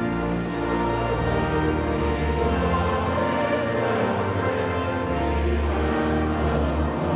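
Church music: pipe organ with brass playing sustained chords of the recessional hymn over a deep, steady bass.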